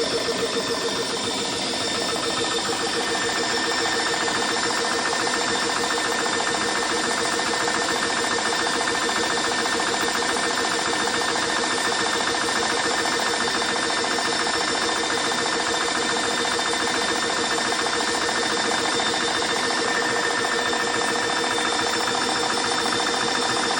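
AEA Precision Airguns PCP high-pressure air compressor running steadily with its cooling fans on, a rapid even pulsing under the fan noise. It is late in a fill, pumping an air rifle past 212 bar on its way to 265 bar.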